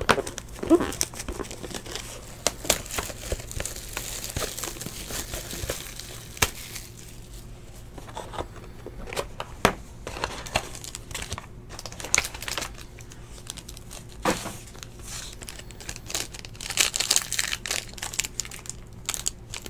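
Foil wrappers of 2017 Panini XR Football card packs being crinkled and torn open by hand: a run of sharp crackles and rustles, busiest a few seconds in and again near the end.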